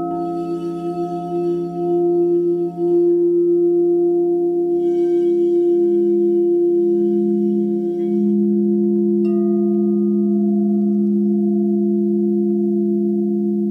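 Alchemy crystal singing bowls ringing in several overlapping steady tones that pulse with a slow wobble. The low tone swells around the middle, and another bowl is struck about nine seconds in, adding a higher ringing tone.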